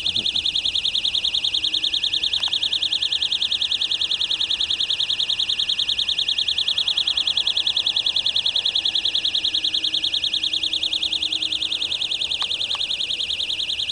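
Shrill, rapid pulsing buzz, like a cricket a hundred times over, holding steady at about ten pulses a second. The couple traced the noise to an electrical box at the marina.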